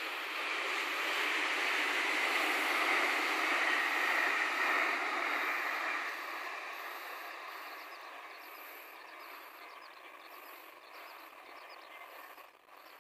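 A white limited express train passing on the rails, a steady rumble of wheels and running gear that swells, is loudest a few seconds in, then fades away as it moves off.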